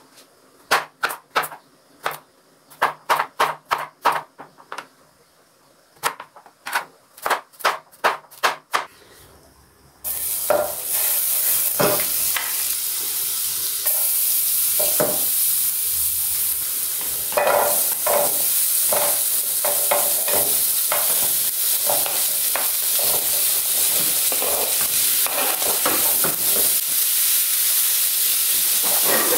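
A kitchen knife chopping zucchini on a plastic cutting board in quick runs of sharp taps. About ten seconds in, loud sizzling starts suddenly as the zucchini fries in hot oil in an aluminium frying pan, with a wooden spoon scraping and stirring through it.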